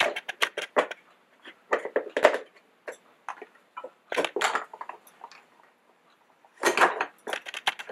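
Hard plastic parts of a small drip coffee maker being handled. A quick run of clicks comes first, then several separate clattering knocks, and another run of quick clicks near the end.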